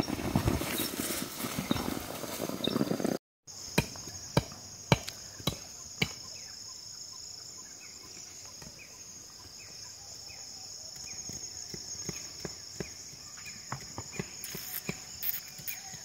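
Steady, high-pitched insect chorus with scattered sharp clicks and taps, a few close together about four to six seconds in. Before an abrupt cut about three seconds in, the sound is a denser, noisier rustle.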